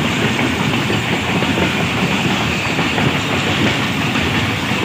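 A moving passenger train heard from inside the coach: the steady rumble and rattle of its wheels running on the track.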